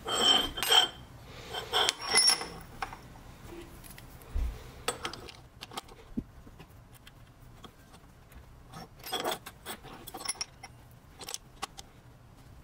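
Machined aluminium parts and screws clinking and scraping against each other and the wooden bench as they are handled and fitted together. A cluster of ringing metallic clinks in the first couple of seconds, then scattered light taps and clicks.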